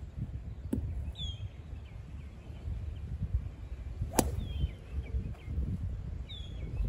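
A golf club striking a ball once, a sharp crack about four seconds in, over a low wind rumble on the microphone. Short bird chirps come and go.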